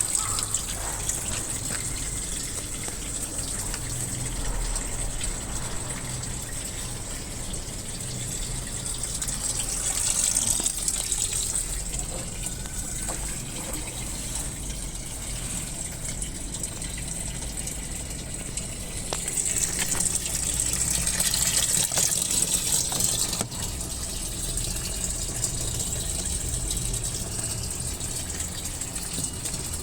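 Muji M-W42D fully automatic washing machine filling its tub: a steady rush of water pouring in over a low hum, swelling louder twice.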